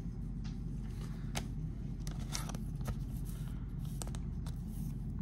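Baseball trading cards being handled and slid past one another: faint scattered rustles and soft ticks over a low, steady hum.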